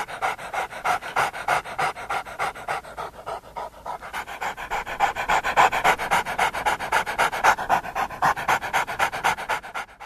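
A dog panting fast and evenly, about five or six breaths a second, easing off slightly a few seconds in.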